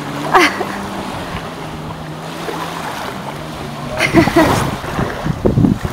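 Jet ski engine running with a steady hum, with loud splashes of water about a third of a second in and again several times in the last two seconds as the craft comes down from jumps.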